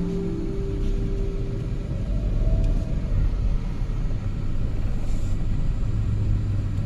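Low steady rumble, with a faint whine that rises and falls a little after two seconds in.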